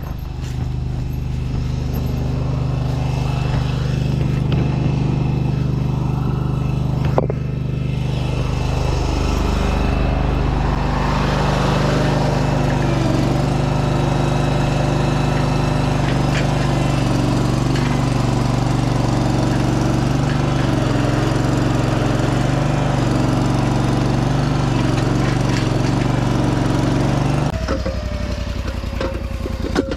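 A large engine running steadily, with a single sharp knock about seven seconds in. The engine picks up a little around eight to twelve seconds in and drops back to a lower, quieter running speed near the end.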